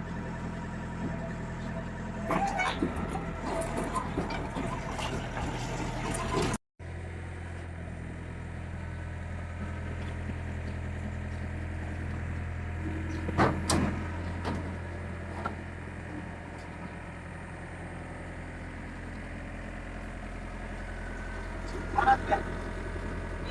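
Diesel engine of a small loader running steadily at low revs, with a few short metallic clanks.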